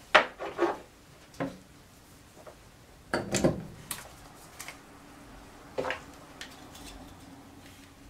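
Scattered knocks and clatter of things being handled on a wooden workbench: a plastic tool case set down in the first second, then a louder cluster of knocks a little past three seconds as earmuffs and safety glasses are put on. A faint steady low hum sits underneath from about halfway.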